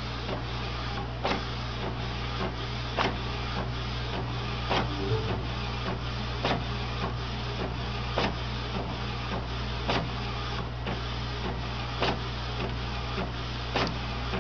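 Printer printing: a steady mechanical whir and hum, with sharp clicks of the print mechanism recurring every second or so.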